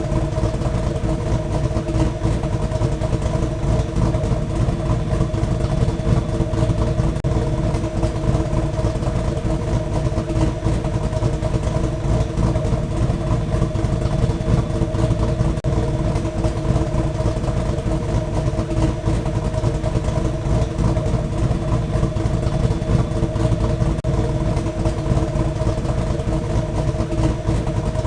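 Steady ship's engine drone: a low rumble under a hum of several unchanging tones.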